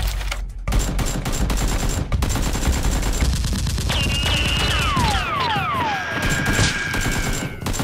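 Rapid bursts of automatic gunfire, shots following close on one another. Around the middle, several whistling tones fall in pitch, and a high steady tone holds near the end.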